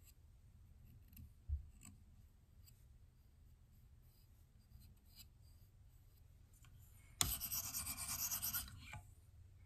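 Light clicks and a soft knock from handling a KME guided knife sharpener. About seven seconds in, a diamond sharpening plate on the guide rod rasps against the knife edge for about a second and a half.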